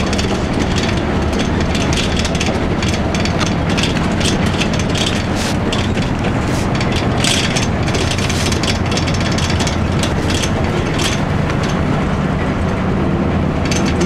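Cabin sound of a 2002 Blue Bird CS transit bus under way: its Cummins ISC inline-six diesel drones steadily while the body, seats and fittings rattle and click throughout.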